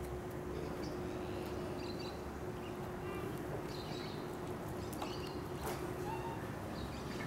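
Outdoor background noise: a steady low hum with a few faint, brief high chirps scattered through it.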